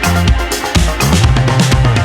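Background music: electronic dance track with a steady drum-kit beat and pulsing bass.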